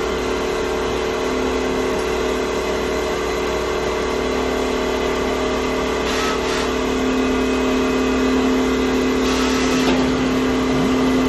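CNC wood lathe running, its motors giving a steady hum. Two brief hissing bursts come in, one about six seconds in and another a little before the end.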